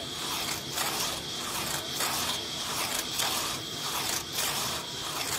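Handmade saw blades rasping back and forth through a log, in even strokes of about two a second.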